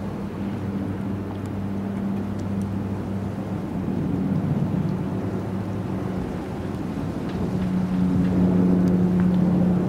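Outboard motor of a small skiff running steadily at cruising speed as the boat heads toward the listener, its hum growing louder near the end.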